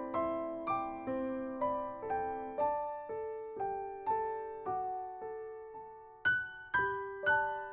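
Slow, gentle electric piano music: single struck notes, about two a second, each ringing and fading, with a louder run of notes near the end.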